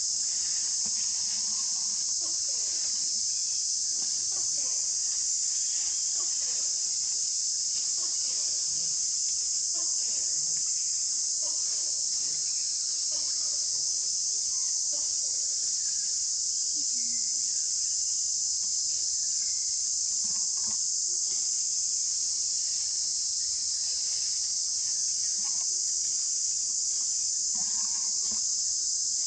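A steady, high-pitched chorus of insects, an even shrill drone with no pauses.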